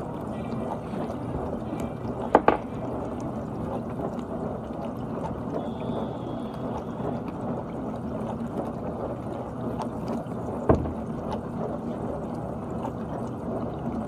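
GE dishwasher running its wash: a steady rush of water spraying and sloshing inside the tub. A sharp double knock comes about two and a half seconds in, and another single knock a few seconds before the end.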